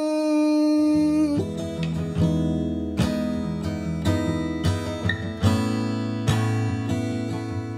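Outro music led by strummed acoustic guitar, with a steady beat.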